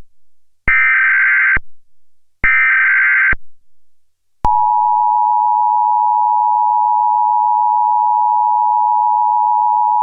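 Emergency Alert System tones: two short bursts of SAME header data, each just under a second long, then about four and a half seconds in the steady two-tone attention signal starts and holds. This is the warning sequence that comes before an emergency alert message.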